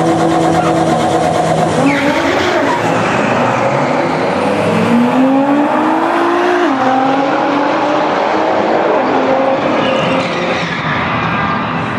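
Drag-racing cars, a BMW SUV against another car, holding steady revs on the start line, then launching about two seconds in and accelerating hard down the strip. The engine pitch climbs and drops suddenly at a gear shift about six and a half seconds in.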